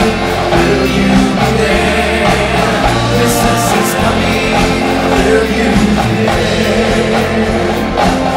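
Live band and choir music: voices singing over sustained bass, guitar and drums, with frequent drum and cymbal hits.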